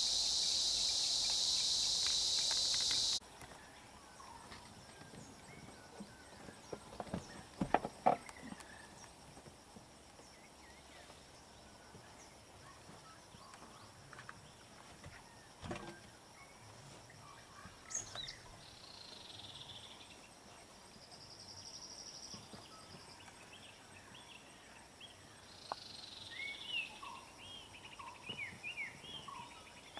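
Loud, steady high-pitched insect buzzing that cuts off abruptly about three seconds in. After that comes quiet bush ambience, with a few sharp knocks around eight seconds and birds chirping in short calls near the end.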